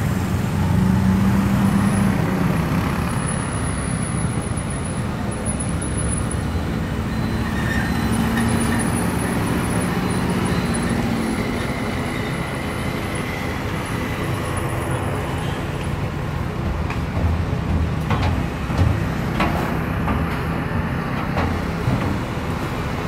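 Airbus A320neo's Pratt & Whitney geared turbofan engines running at taxi power: a steady rumble with a thin high whine.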